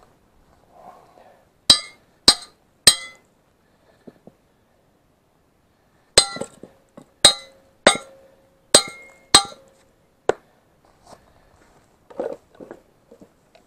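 Hammer blows on a steel bracket of a tractor front-loader attachment, each one ringing like struck metal: three quick blows, a pause, then five more, and one light tap after them.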